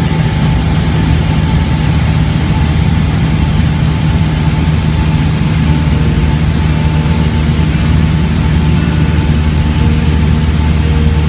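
Small propeller plane's engine and propeller heard from inside the cabin in cruise: a loud, steady, deep drone with an even hum and a hiss of airflow over it.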